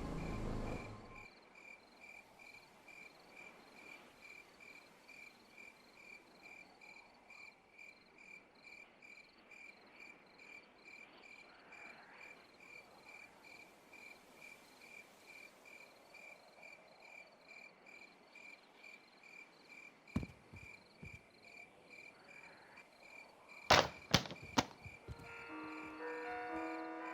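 Crickets chirping in a steady, evenly pulsed rhythm. A few sharp knocks come about 20 and 24 seconds in, and music begins near the end.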